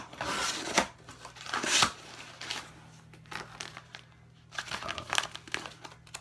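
Paper packaging crinkling and tearing as a mailed package is opened by hand, in several bursts with the loudest in the first two seconds, followed by softer rustling of a folded paper slip being handled.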